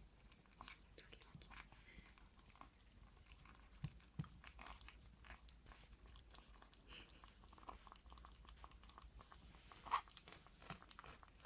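Two Papillon puppies eating from a glass bowl: faint chewing and smacking with scattered small clicks, two sharper ones about four seconds in and the loudest near the end.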